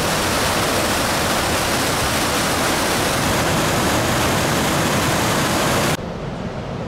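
Waterfall: a heavy, steady rush of water pouring over rock. About six seconds in it cuts off abruptly to a quieter, softer rushing hiss.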